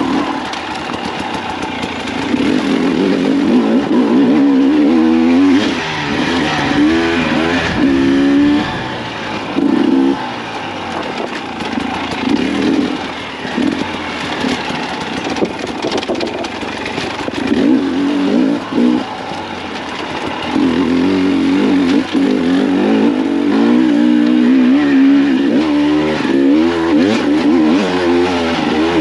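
2024 Husqvarna TE300's single-cylinder two-stroke engine under a rider, revving up and dropping back over and over as the throttle is worked, with short lulls where it falls off before climbing again.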